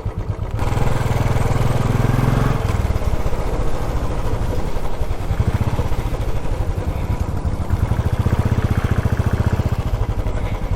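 Royal Enfield Classic 350's single-cylinder engine running at low speed with a steady pulsing thump. It gets louder about half a second in and swells again later on.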